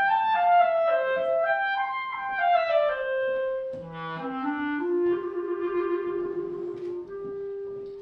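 Solo clarinet playing a short, quick melody that winds downward, then settles on a long held lower note for the last few seconds. It is a mouse character's musical theme.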